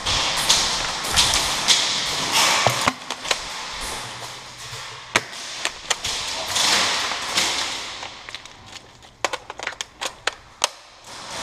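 Rustle and handling noise as a player moves with an airsoft shotgun, with brighter surges of noise. In the last two or three seconds comes a quick run of sharp clicks and snaps, typical of airsoft shots and BBs striking barriers.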